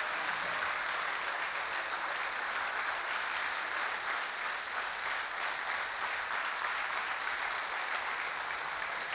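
Large audience applauding steadily, a dense even clapping that eases slightly near the end.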